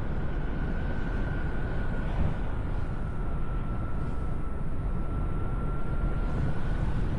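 Powered paraglider (paramotor) engine running steadily in flight, a constant drone with a held high whine that drifts slightly in pitch, over heavy wind rush.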